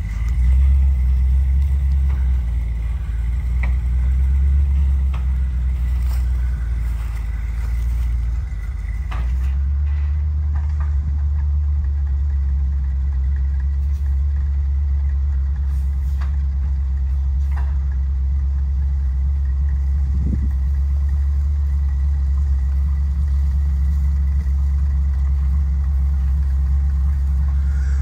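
Engine of a loaded Chevrolet C70 single-axle log truck running steadily as the truck moves slowly, its low note changing about nine seconds in.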